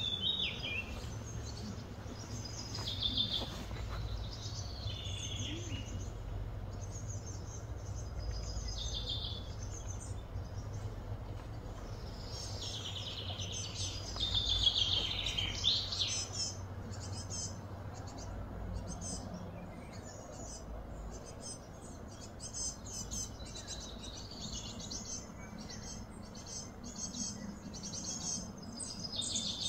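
Outdoor ambience of birds chirping and twittering, with a louder run of quick repeated notes about halfway through, over a steady low background rumble.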